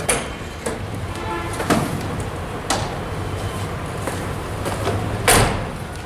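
Steady low engine rumble of road traffic, broken by several sharp knocks or thumps, the loudest about five seconds in.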